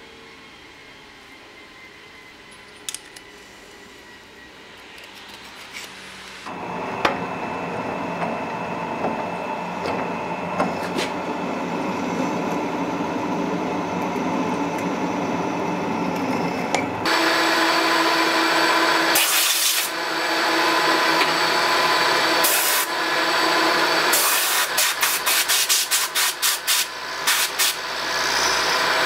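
A few seconds of quiet shop tone, then a drill press running and a bit cutting into a metal plate clamped in a vise. About halfway through, a larger drill starts boring through metal, louder and hissing, and turns choppy near the end as the cut goes on.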